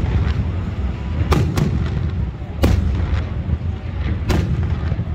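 Aerial firework shells bursting: four sharp bangs, two close together about a second and a half in, then one near the middle and one near the end, over a continuous low rumble of further bursts.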